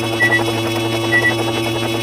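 Dense pile-up of many looping sound effects playing at once: steady droning tones under a rapid busy clatter, with a short high beep about every second.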